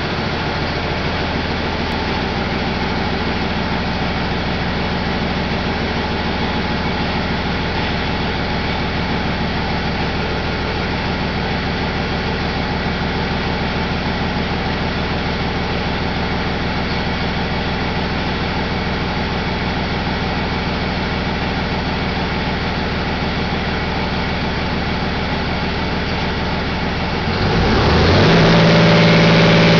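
Cummins ISB6.7 inline-six turbodiesel engine idling steadily. About 27 seconds in, it speeds up to a higher, louder steady speed.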